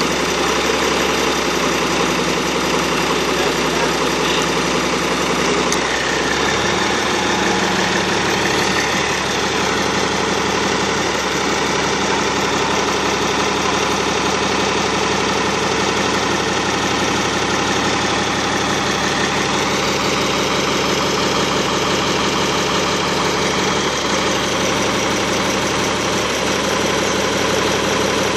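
A motor engine idling steadily.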